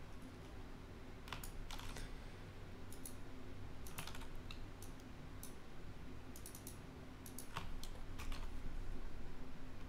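Computer keyboard keys and mouse clicking in short, scattered taps, some in quick clusters, over a low steady hum.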